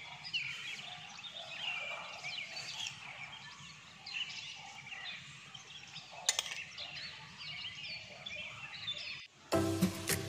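Small birds chirping and twittering, with many short calls overlapping. There is a single sharp click about six seconds in, and music starts near the end.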